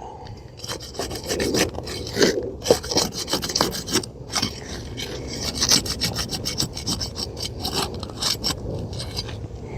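A thin flat pry bar being worked under brittle asphalt shingles, scraping and cracking through the tar sealant line to unseal them. It comes as a run of short, irregular scrapes and crackles.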